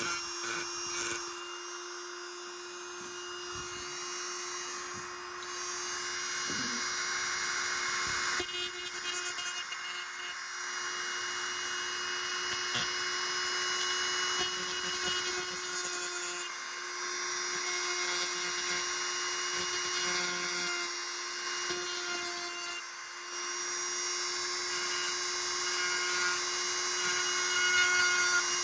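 Handheld rotary tool running at a steady high speed, its small abrasive disc grinding a thin steel knife blank. The grinding hiss rises and falls as the steel is pressed to the spinning disc and eased off, over the motor's constant whine.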